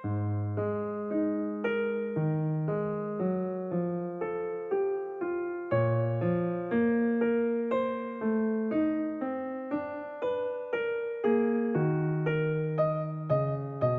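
Background music: a piano-like keyboard playing a slow melody over low chords, with each note struck and fading, about two notes a second.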